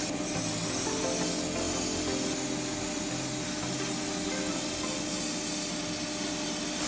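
Airbrush hissing steadily as it sprays paint, over background music.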